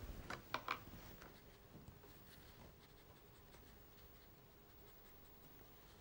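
Three or four quick clicks about half a second in, as pencils and a brush are handled on a plastic palette tray, then faint light scratching of a fine brush on watercolour paper.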